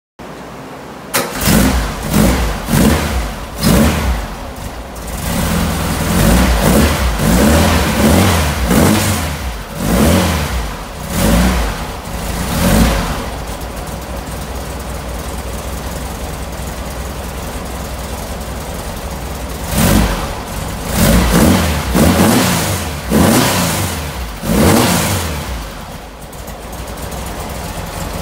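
2110cc air-cooled VW flat-four with dual 44mm Weber carburetors and a stainless sidewinder exhaust, revved by hand at the throttle linkage: a run of quick throttle blips, then a steady idle for several seconds in the middle, then another run of blips before it settles back to idle.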